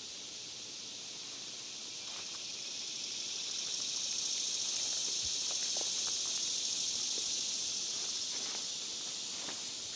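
Insects droning in a steady high hiss that swells a few seconds in and eases off toward the end. Faint rustles and clicks come from tent stakes being pushed into leaf-covered ground.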